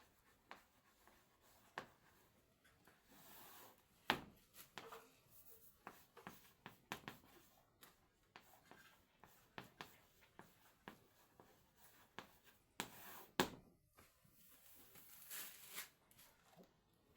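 Faint scratching strokes and taps of writing on a board, coming in short irregular runs with pauses, with a few longer scrapes near the middle and later on.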